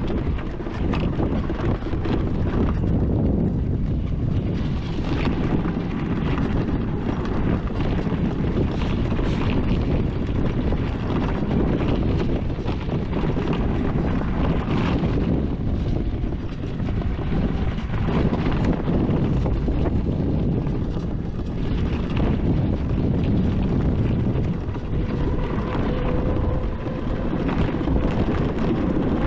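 Wind rumbling heavily on the microphone of an electric ATV on the move, a steady dense rumble. A faint steady whine comes in near the end.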